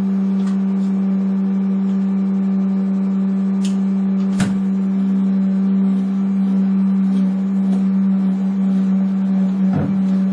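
Loud, steady low electrical hum from motorised lab tracking equipment, one even tone with fainter overtones. A few faint clicks and one sharper click about four and a half seconds in.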